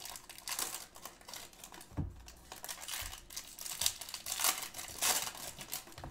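Foil trading-card pack wrapper crinkling and tearing as packs are handled and opened by hand. A soft thump comes about two seconds in.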